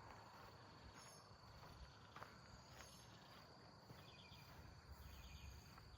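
Near silence: faint outdoor ambience with a thin, steady high-pitched insect drone and a few faint short chirps.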